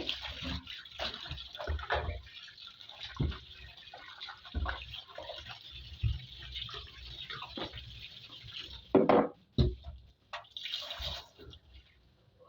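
Kitchen tap running into a sink while utensils are washed, with knocks and clatter of dishes throughout. The water stops a little past two-thirds of the way through, followed by a loud knock and a brief second run of water.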